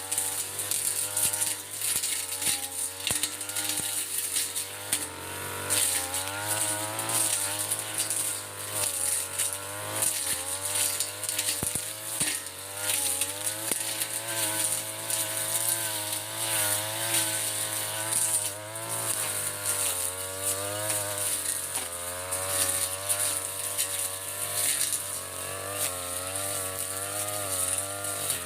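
Mitsubishi TU33 two-stroke brush cutter running at high speed, its engine pitch rising and dipping over and over as it cuts through ferns.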